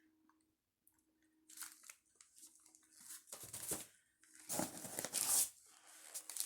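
Crinkling and rustling of plastic-wrapped fireworks packaging being handled, in several separate bursts, the loudest about halfway through.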